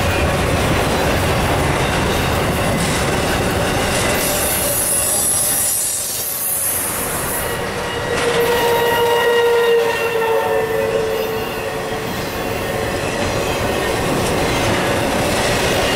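Intermodal freight cars carrying containers and highway trailers rolling past on the rails: steady wheel and rail noise. A high hiss rises in the middle, and a held pitched tone comes in about eight seconds in and fades after a few seconds.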